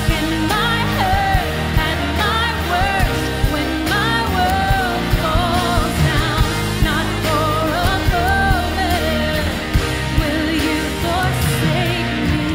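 Worship music: voices singing a melody over a band with a steady beat.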